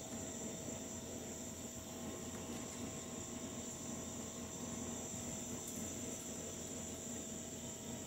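Steady, unbroken high-pitched chorus of night insects.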